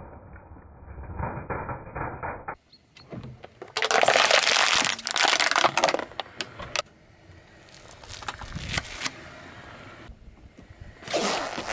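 A car tyre rolling over and crushing small objects on asphalt: crackling and crunching in several separate bursts, the loudest lasting about three seconds a few seconds in.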